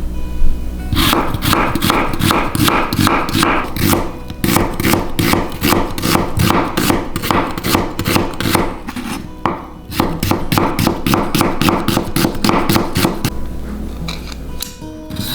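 Knife chopping vegetables on a cutting board: quick repeated strokes, about four a second, starting about a second in, with a short break about nine and a half seconds in, over background music.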